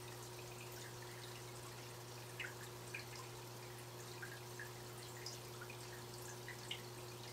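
Running planted aquarium: the external canister filter hums steadily and low, under faint, irregular drips and small plinks of water.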